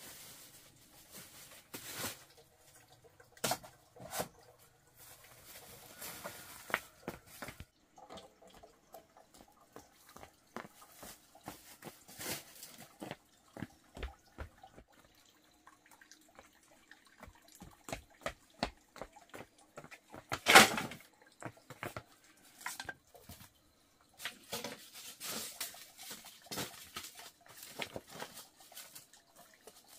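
Scattered footsteps and knocks of firewood being handled and laid under an iron trivet on a hearth, with one loud knock about two-thirds of the way in and rustling near the end.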